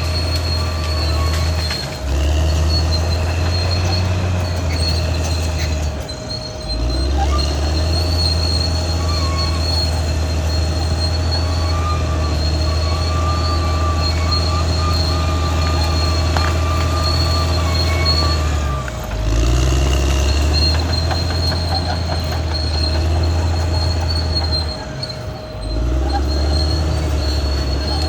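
Caterpillar D6R XL crawler dozer working: its diesel engine drones steadily under load, with a steady high whine above it. The engine note drops off briefly four times, a little after the start, about a quarter of the way in, about two-thirds of the way in and near the end.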